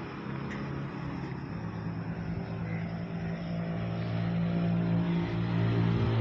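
A motor vehicle's engine running, with a steady low hum that grows gradually louder, as if it is drawing nearer.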